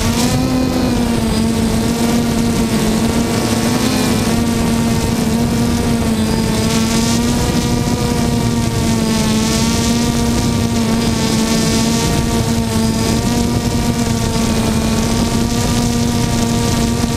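DJI Phantom quadcopter's motors and propellers running close to the microphone on the drone, a steady buzzing hum whose pitch wavers slightly as it lifts off and climbs.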